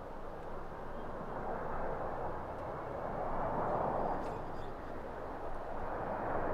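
Jet engines of a Boeing 777-300 on final approach at low approach thrust, landing gear down: a steady rushing jet noise that swells about halfway through and again near the end.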